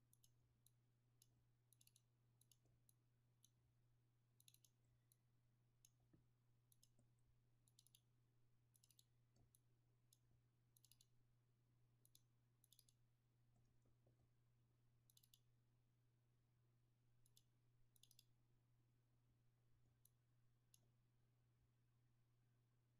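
Faint computer mouse clicks, irregularly spaced and often in quick pairs, as edges on a 3D model are picked one by one; a low steady hum underneath.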